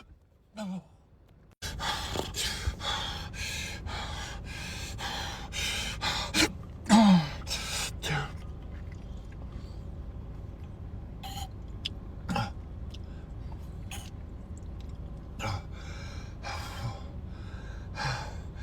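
A person with hiccups gasping and catching their breath. The short, breathy sounds come in a quick run in the first half, one of them a loud voiced catch falling in pitch, then singly a second or more apart.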